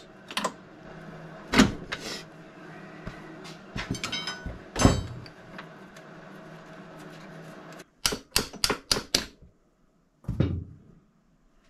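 Hand tools and metal parts knocking and clanking against an ATV engine and frame as the engine is pried and wrenched into position. About eight seconds in comes a quick run of sharp clicks, then one last knock.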